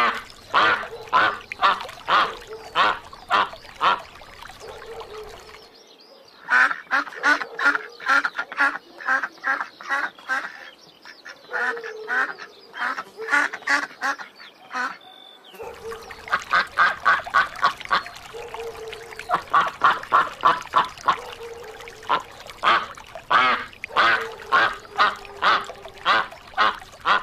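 Domestic ducks quacking in quick runs of short, loud calls, several a second, with the background changing abruptly twice where recordings are cut together.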